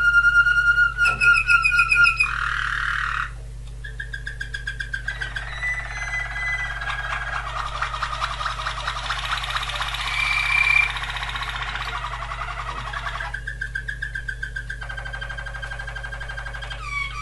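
Waterslager canary singing a continuous song of changing tours: held whistled notes, rapid pulsed trills and a long bubbling, rolling passage in the middle, each tour lasting one to a few seconds.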